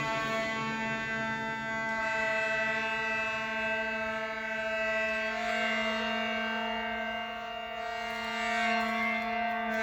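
Music: a sustained drone held on one pitch with many steady overtones, its upper tones swelling brighter about five seconds in.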